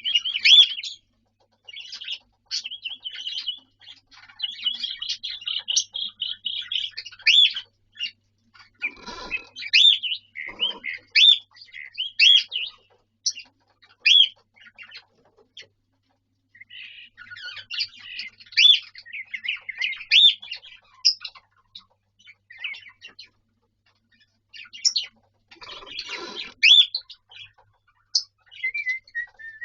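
Cockatiel whistling and chirping: runs of rapid chirps and short rising whistle notes, broken by pauses. There are a couple of brief lower sounds, about a third of the way in and near the end.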